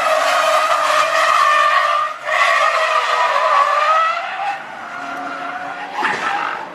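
A sports car's tyres squealing in a long, wavering screech as the car slides sideways through a corner, with a brief break about two seconds in. The squeal fades after about four and a half seconds, and a short sharp sound comes near the end.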